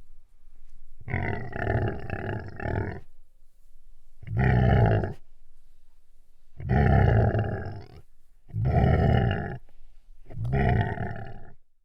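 An animal roaring, five separate roars of a second or two each with short pauses between; the second and longest breaks into several grunting pulses.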